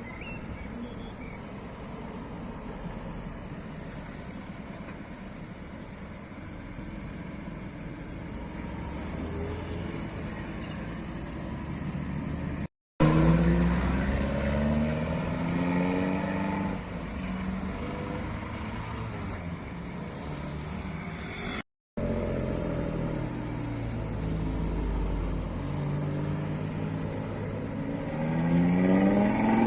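Tuned sports-car engines running and revving through loud exhausts, engine notes rising as cars accelerate, loudest near the end. Two brief dropouts where clips are cut together.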